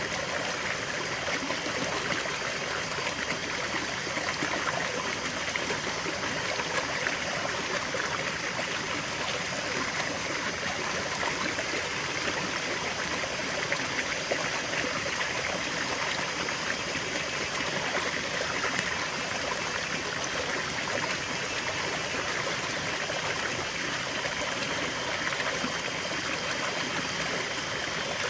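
Small stream of water flowing and trickling over stones, a steady babbling rush with no let-up.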